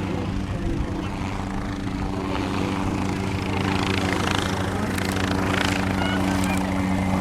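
Agusta Caweel CW-86 helicopter's engine and rotor running with a steady low hum, gradually getting louder.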